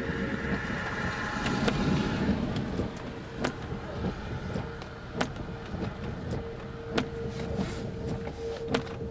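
Road noise inside a moving car with the windshield wipers running: a steady low rumble and faint hum, with a sharp click about every second and three quarters as the wiper blades sweep.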